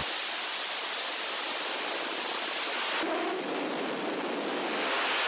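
Nuri (KSLV-II) rocket's first stage firing at liftoff, its four clustered 75-tonne-class engines giving a steady rushing noise with little deep bass. The noise changes abruptly about three seconds in, losing some of its hiss.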